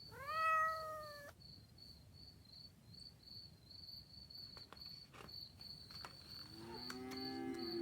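Crickets chirping steadily, with a cat meowing once, rising and then holding, at the start, and a calf mooing near the end.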